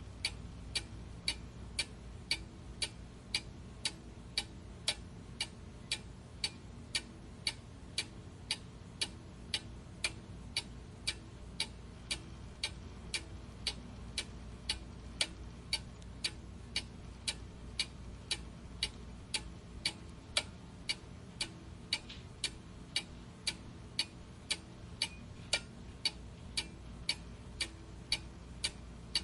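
Steady, even ticking, about two ticks a second, each tick short and sharp.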